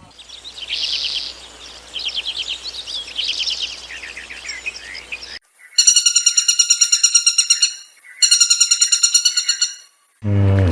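A songbird singing rapid, high trilled phrases, cut after about five seconds. A different animal call follows: a fast, evenly pulsed, high, buzzy chatter in two bouts of about two seconds each.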